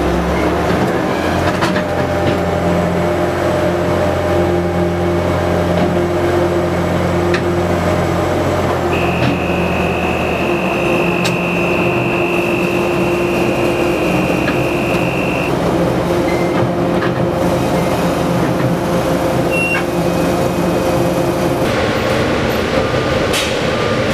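Engine of a construction-site rail vehicle running steadily as it travels, with a high steady whine for several seconds in the middle. Near the end the sound gives way to the steady machinery noise inside the tunnel.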